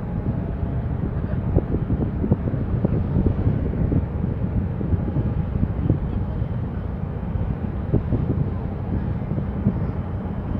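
Wind buffeting the microphone: a low rumble with frequent irregular thumps.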